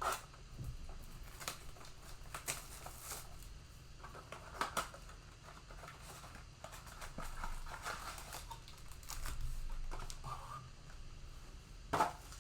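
Packaging of a trading-card blaster box being torn and opened: crinkling plastic wrap and foil packs, with scattered clicks and taps of cardboard.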